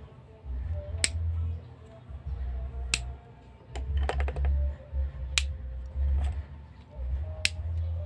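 Sharp plastic clicks from a two-gang light switch being handled and turned over in the hands: single clicks every second or two, with a quick rattle of several clicks about four seconds in. Low rumbling handling noise on the microphone comes and goes between them.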